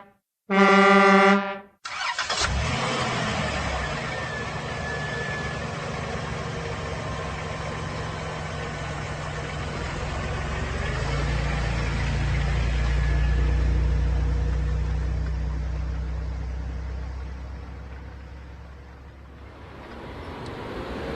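A vehicle horn honks twice near the start, the second honk lasting about a second. Then a road vehicle is heard running and passing, getting louder toward the middle and fading away before the end.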